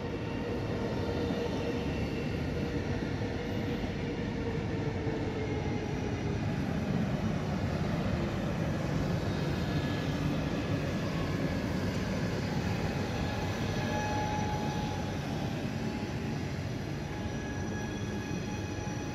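ETR 425 'Jazz' electric multiple unit (Alstom Coradia Meridian) rolling past, with a continuous rumble of wheels on the rails and several steady whining tones. The lowest whine falls slowly in pitch over the first several seconds.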